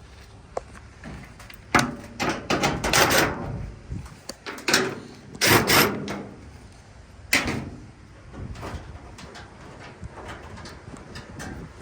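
Metal dryer parts being handled during disassembly: a string of irregular clunks and rattles, the loudest in the first half, then lighter clicks.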